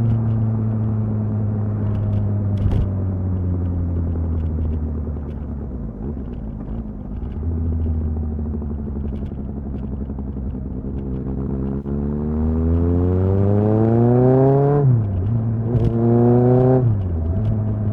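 Kawasaki ZXR inline-four motorcycle engine under way, first holding a steady, slightly falling note. Then it accelerates hard with rising revs, with two quick upshifts about 15 and 17 seconds in, each a sharp dip in pitch before the revs climb again.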